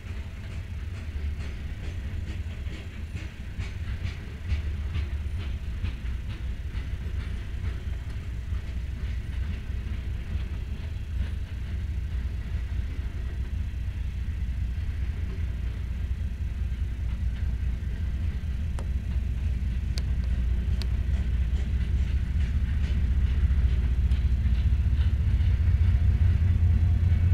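Freight train of covered grain hopper cars rolling past: a steady low rumble of steel wheels on rail with faint rhythmic clicks, growing louder toward the end.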